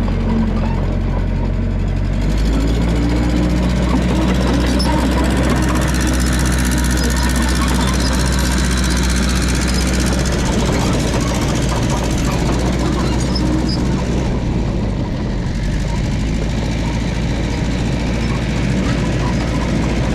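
The engine of a 1969 Massey Ferguson 300 crawler dozer running steadily at work. About two seconds in, its note deepens and grows heavier, then holds.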